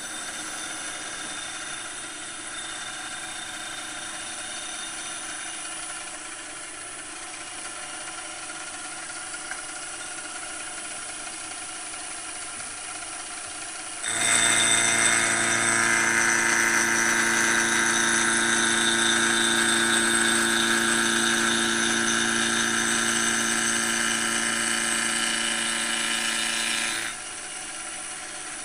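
WMT HM-46 CNC mill running, with a steady hum and whine. About halfway in it becomes much louder with a steady high whine and cutting noise as the mill machines the sacrificial plate flat and parallel, then drops back to the quieter hum near the end.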